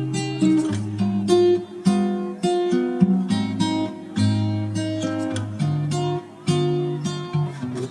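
Music: acoustic guitar playing a run of strummed and plucked chords at an even pace.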